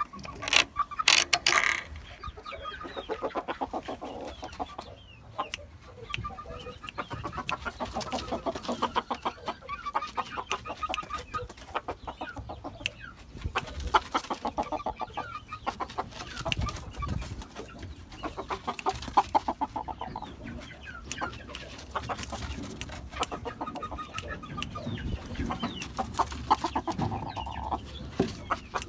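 Young oriental game bantam cockerel (stag) clucking in repeated runs of rapid pulses, each run lasting a few seconds, with a few loud knocks in the first couple of seconds.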